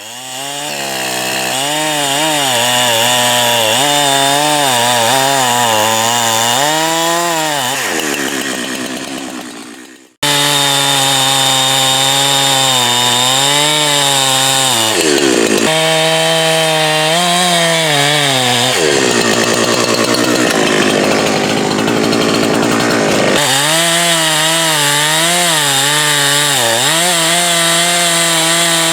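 Two-stroke chainsaw running at high revs and cutting wood, its engine pitch wavering and dipping as the chain works through the cut. The sound breaks off abruptly about ten seconds in and resumes at once.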